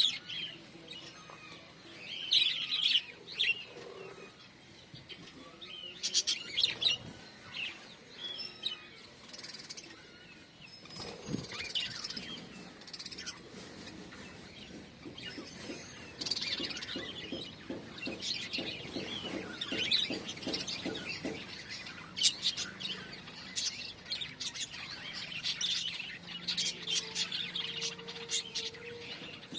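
Pet lovebirds and budgerigars chirping, short high chirps coming in clusters every few seconds.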